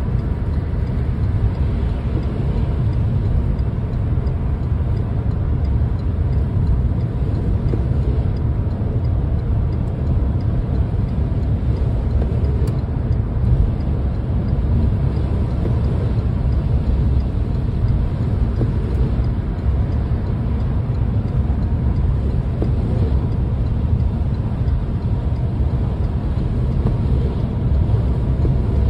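Steady road noise heard from inside a moving car on a highway: a constant low rumble from the engine and tyres running on wet pavement.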